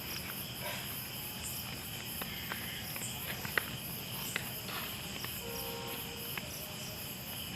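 Night chorus of crickets and other insects chirping steadily in several high, pulsing tones, with a few scattered sharp clicks and a brief faint tone a little past halfway.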